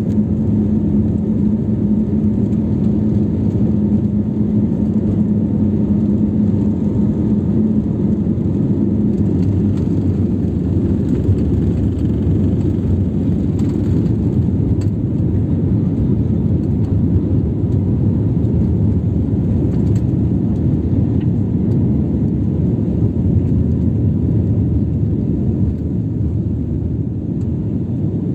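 Cabin noise of an Airbus A320-family airliner's jet engines at takeoff power through the takeoff run, liftoff and climb-out: a loud, steady low-pitched noise, with a steady hum that fades out about nine seconds in.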